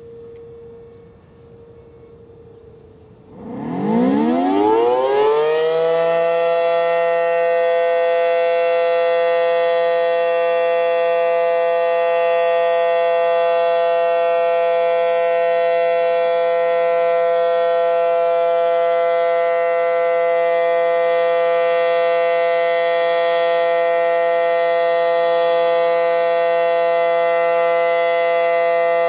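Federal Signal SD-10 outdoor warning siren winding up about three seconds in, its pitch rising quickly to a loud steady tone that it then holds: the steady Alert signal. Before it starts, a distant siren is faintly heard holding a steady tone.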